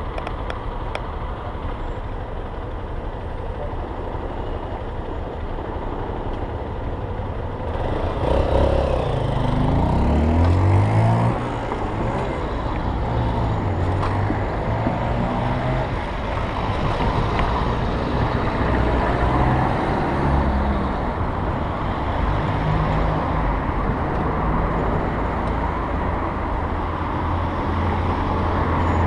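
Street traffic heard from a bicycle: a steady mix of car engines and tyre noise, with one motor vehicle's engine revving up and pulling away about eight seconds in, the loudest moment.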